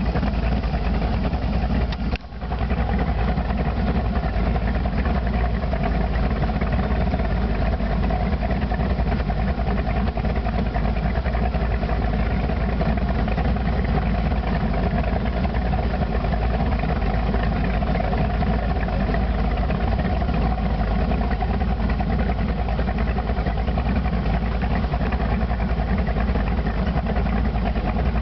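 Inboard engine of a V-drive hot boat idling steadily as the boat creeps along. The sound drops out briefly about two seconds in.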